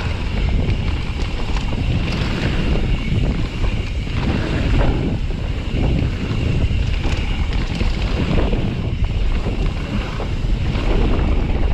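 Wind buffeting an action-camera microphone over the rumble of a Pyga Hyrax mountain bike's tyres rolling fast down a dirt singletrack. Small knocks and rattles from the bike come through the noise.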